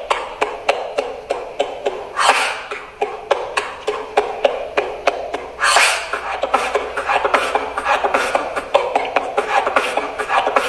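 Beatboxing: vocal percussion in a quick, steady rhythm of sharp clicks and beats, with hissing sweeps about two and six seconds in. It imitates Asian traditional dance music.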